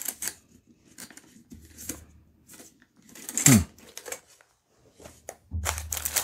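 Hands handling and opening a small gun vault case: scattered clicks and rustles, a short creak that falls in pitch about three and a half seconds in, and plastic packaging crinkling near the end as the case opens.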